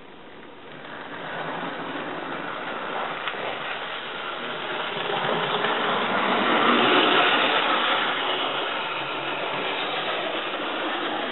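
Bachmann N Class model locomotive, DCC-fitted, running along the track: a steady whirr of its small motor and gears with the wheels rolling on the rails. It grows louder about a second in and is loudest around the middle.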